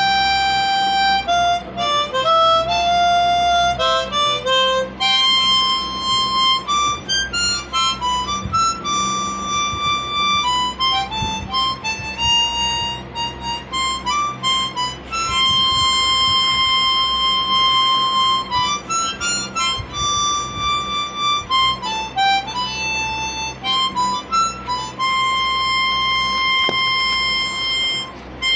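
Instrumental background music: a slow melody of held notes stepping up and down, with a reedy, harmonica-like tone, over a low steady drone.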